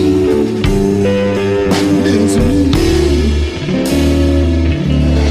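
Electric blues recording playing: a lead guitar line with bending notes over bass and drums.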